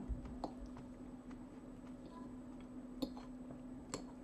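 A metal fork clicking lightly against a ceramic plate a few times while picking up salad, the two clearest clicks about three and four seconds in, over a steady low hum.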